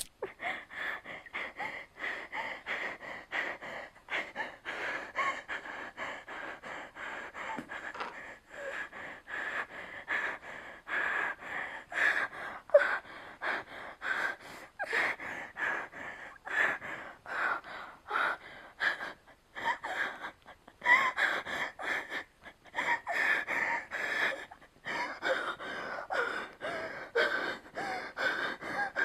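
A person gasping and breathing hard in rapid, ragged breaths, a panicked hyperventilation that starts suddenly and keeps up without a break.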